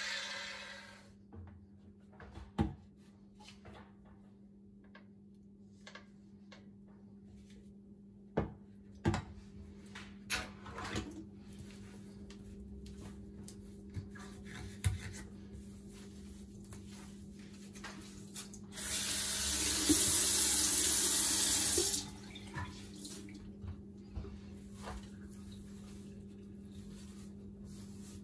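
Kitchen faucet running into a stainless steel sink for about three seconds, the loudest sound here, among scattered knocks and clunks of things being handled on the countertop and in the sink. A faint steady hum sits underneath.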